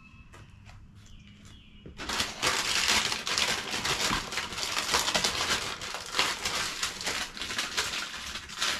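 Plastic shotgun shells being handled and set into a plastic shell container: a dense crackle of clicks, rubbing and rattling that starts about two seconds in after a quiet start.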